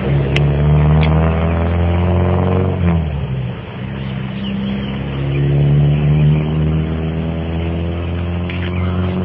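A motor vehicle's engine running steadily with a low, even note. It dips about three seconds in and picks up again a second later.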